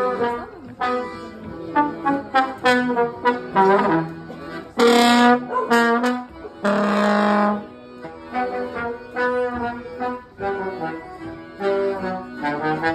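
Music: a wind instrument playing a slow melody of separate notes, a few of them held for about a second.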